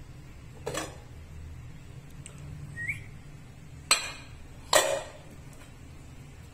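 Aluminium pot lid being handled with a cloth and lifted off: three sharp metal clanks, the last and loudest just before the middle ringing on briefly. A short rising squeak comes between the first two clanks, over a low steady hum.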